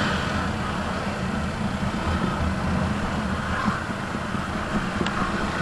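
Motorcycle engine running steadily at low road speed, a low rumble mixed with wind and road noise.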